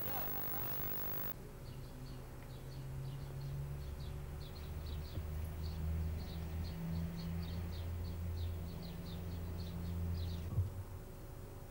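Small birds chirping in a quick, irregular series of short high chirps, over a steady low rumble of outdoor ambience. A single sharp knock sounds near the end.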